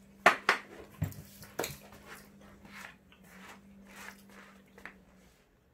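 A few sharp knocks and clatter in the first two seconds, then softer scattered shuffling, over a faint steady hum.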